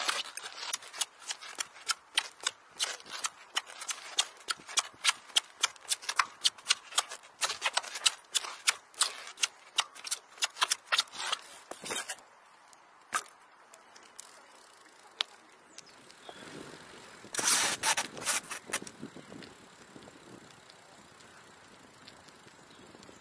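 Parts of a flatland BMX bike clicking and knocking as it is ridden through tricks: a long run of sharp, irregular clicks, several a second, then a lone click and a short, dense cluster of clicks later on.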